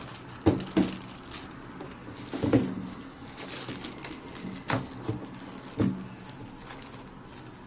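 Hands handling a pair of adidas NMD Hu sneakers and their rope laces on a cardboard shoebox: soft rustling broken by several light knocks and taps, the clearest about half a second, two and a half, and just under five seconds in.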